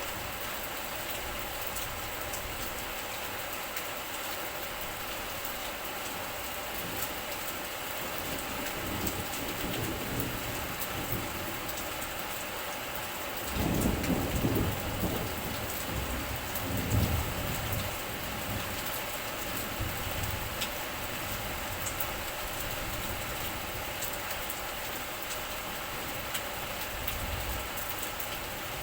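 Steady rain falling, with fine drop ticks throughout. About halfway through, a low rumble of thunder sets in suddenly and rolls on for several seconds, swelling twice before it fades.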